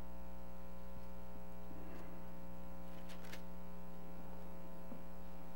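Steady electrical mains hum, buzzy with a long ladder of overtones, as from a sound system or recording chain. A faint short rustle about three seconds in.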